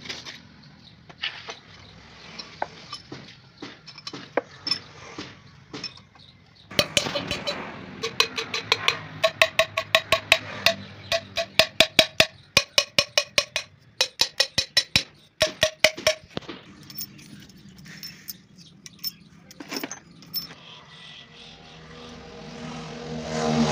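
Rapid sharp metallic clicks, a few a second with a ringing tone, as valves are worked by hand against their seats in a Massey Ferguson 375 cast-iron cylinder head. Near the end a low engine sound swells up.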